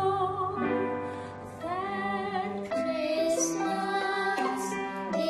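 A woman sings the end of a phrase to violin and cello accompaniment, and the violin and cello then carry on into an instrumental passage.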